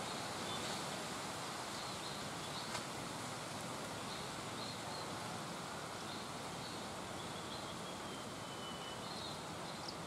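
Steady outdoor ambience with a constant hiss, faint short high chirps scattered through it, and a faint drawn-out whistle near the end. One brief click about three seconds in.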